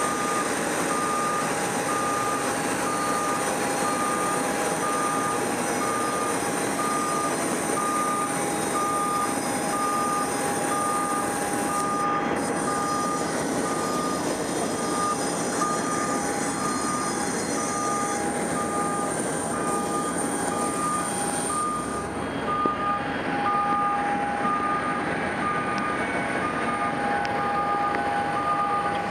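Boeing 737-700's CFM56 jet engines running at taxi idle as the aircraft rolls in to park, a steady whine and rush. Over it, an electronic warning beeper sounds steadily, a little faster than once a second, and the highest hiss falls away about three-quarters of the way in.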